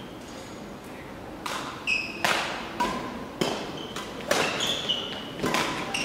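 Badminton rally: rackets striking the shuttlecock with sharp smacks about a second apart, with short squeaks of court shoes on the sports-hall floor in between.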